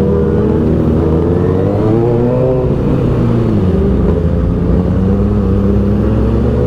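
Kawasaki ZX-6R's inline-four engine running while under way, its pitch rising briefly about two seconds in and easing back down, then holding steady.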